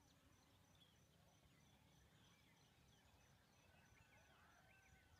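Near silence: faint outdoor ambience with distant birds calling in short chirps and whistles, scattered through.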